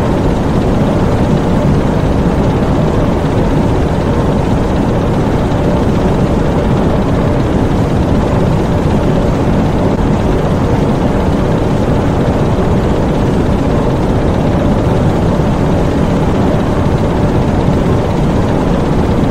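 Diesel engines in a U-boat's engine room running steadily, a dense, even drone with no change in speed.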